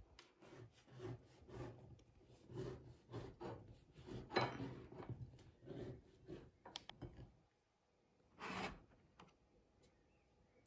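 Faint, rhythmic scraping of a table knife across a crusty bread roll, spreading it, at about two strokes a second; the strokes stop about seven seconds in, and one louder scrape follows a second later.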